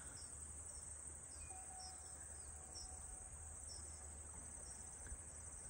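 Faint outdoor ambience: a steady high hiss with small high-pitched chirps repeating about twice a second, insect-like, over a low rumble.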